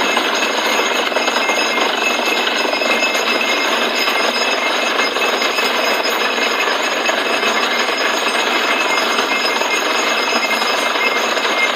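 Borewell drilling rig running steadily while boring: a loud, continuous mechanical din with steady high-pitched whines over it.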